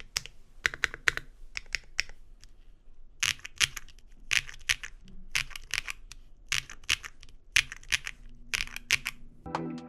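Typing on an O-ring-mounted mechanical keyboard fitted with Nuxoskb PCBsnap posts over its O-ring pillars: key presses come in irregular quick bursts of clacks with short pauses between. Music starts near the end.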